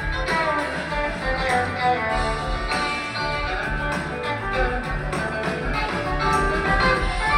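Live rock band playing, electric guitars to the fore over drums, bass and keyboards.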